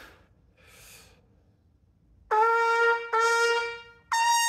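Trumpet played on a shallow lead-cup mouthpiece with a 4 mm throat and small back bore. A couple of quick breaths in, then two short notes on the same pitch, then a note an octave higher that is held.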